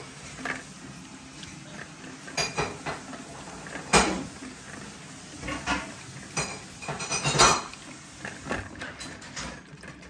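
Two poodles eating from ceramic plates on a stone floor: irregular clinks and knocks of the plates as the dogs nudge and lick them, the loudest about four seconds in and again about seven and a half seconds in.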